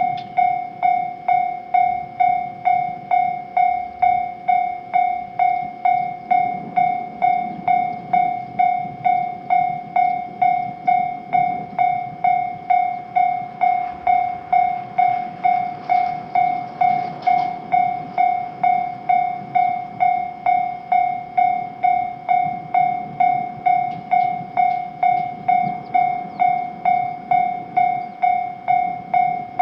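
Japanese railroad crossing electronic warning bell ringing, one steady electronic tone struck over and over at about one and a half times a second. A train rumbles through the crossing in the middle, loudest about two-thirds of the way through.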